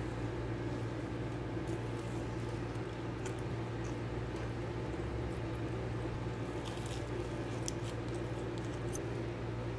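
Steady low hum of a running kitchen appliance, with faint soft squishing as a sugar-dusted fried donut is torn apart, and a few light clicks near the end.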